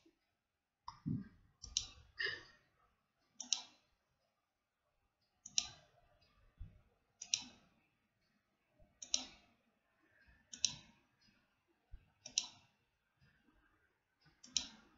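Computer mouse button clicked about ten times, roughly every one and a half to two seconds, each click loading an earlier batch of replies in a long comment thread.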